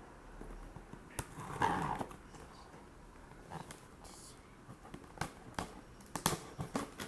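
A cardboard shipping box being cut open and handled: a few sharp clicks and rustles, with a short whine about one and a half seconds in.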